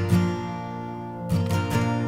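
Background music: strummed acoustic guitar with a country feel, without vocals.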